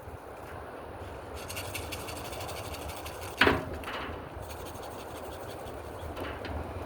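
Remington Airmaster 77 pump-action air rifle handled and fired: one sharp crack about three and a half seconds in, then a softer click about half a second later, over a steady low background hum.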